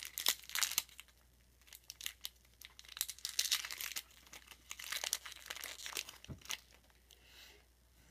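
Wrapper of a 1992-93 Topps basketball card pack being torn open and crinkled by hand, in several short spells of crackling and sharp crinkles.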